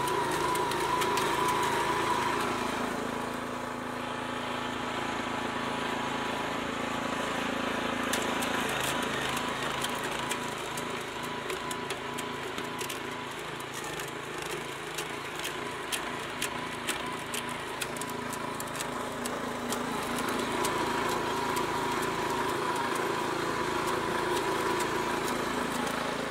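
Homemade auger branch chipper running steadily, driven by a small engine through a reduction gearbox. Through the middle stretch it crackles and snaps with many sharp clicks as the screw pulls in and cuts dry branches into chips.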